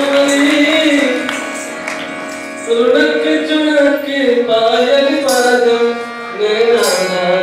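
Live Rajasthani folk music: a voice sings long, sliding melodic phrases to harmonium and drum accompaniment.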